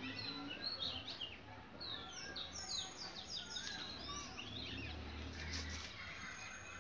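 Background birdsong: several birds chirping, with many short downward-sliding notes overlapping. A faint low rumble swells for a moment near the end.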